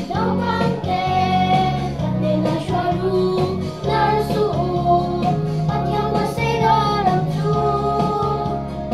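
Children singing a Mizo action song in unison over a recorded backing track with guitar and a steady bass line.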